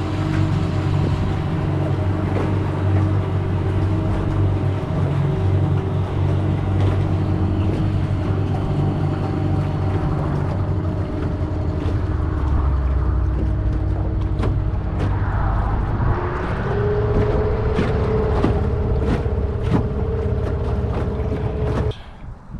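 Nissan Tohatsu 8 hp outboard motor running steadily. Past the middle a steady higher whine joins the engine note, and the sound cuts off abruptly near the end.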